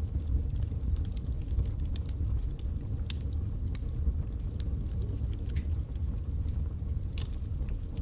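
Wood fire burning in a fireplace: logs crackling, with irregular sharp pops over a steady low rumble of the flames.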